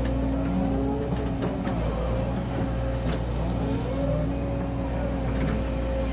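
Volvo EC140 hydraulic excavator's diesel engine running steadily under load, with a hydraulic whine that slides up and down in pitch as the machine lifts and swings an uprooted eucalyptus stump, and a few short knocks.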